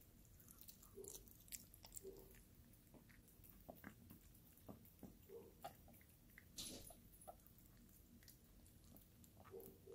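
Chihuahua eating wet dog food from a stainless steel bowl: faint, scattered wet chewing, licking and smacking sounds with small clicks.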